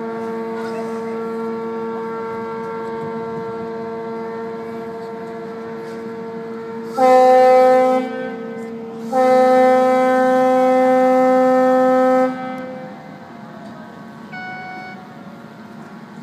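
Ships' horns sounding across the harbour. A steady long horn note is joined by a much louder deep horn that gives a short blast about seven seconds in, then a longer blast of about three seconds. A brief, higher-pitched horn sounds near the end.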